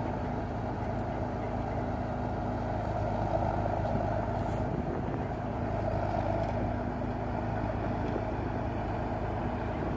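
Ruston-Bucyrus 30-RB dragline engine running steadily as the machine works its bucket, an even drone with no sudden knocks or bangs.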